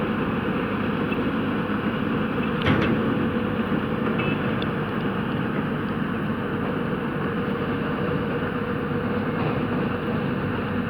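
Excavator's diesel engine running steadily, with a single sharp knock about two and a half seconds in.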